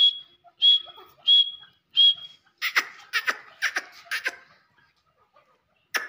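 Grey francolin calling: four clear, even-pitched whistled notes at a steady pace, followed by a quick run of loud, harsh notes, then it falls quiet about a second and a half before the end.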